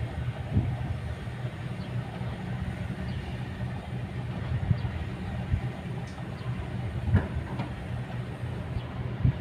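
Kobelco hydraulic excavator's diesel engine running steadily under work, with a few short knocks, the clearest about seven seconds in.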